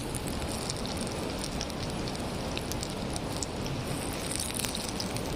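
Cooking fire crackling: a steady hiss with scattered small pops.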